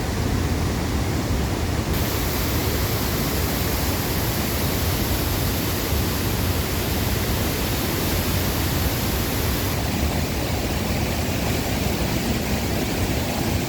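Niagara River water rushing over rocks, a steady, even rush of noise.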